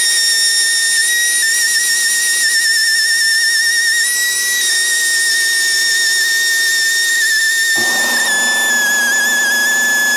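Grinder with a lightly abrasive polishing wheel, whining at a steady high pitch while it spins. From about eight seconds in, a lower grinding joins the whine and the pitch dips and wavers as the wheel bears on the engine block to strip off old silicone sealant.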